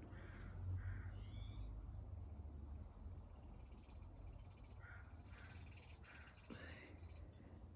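Faint animal calls: a few short calls about a second in, then a run of calls in the second half, over a low background hum.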